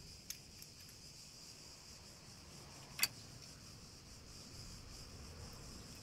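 Two light metallic clicks from hand tools on the bare engine, a small one just after the start and a sharper one about three seconds in, over a faint steady high hiss.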